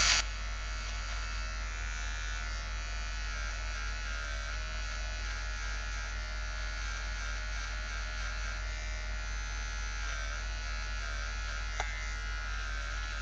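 Electric hair clippers buzzing steadily as they cut hair short at about 3 mm, the pitch wavering now and then as the blades bite into the hair.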